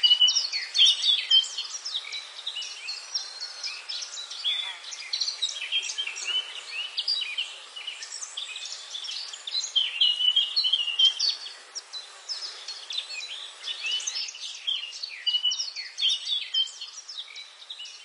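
A dense chorus of many small birds chirping, with short overlapping calls throughout.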